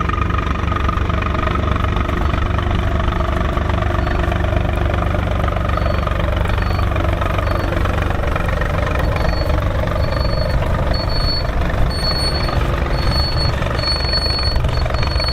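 Volvo BM tractor's diesel engine running steadily under load while ploughing. From about halfway, short high beeps repeat roughly twice a second over the engine and grow louder toward the end.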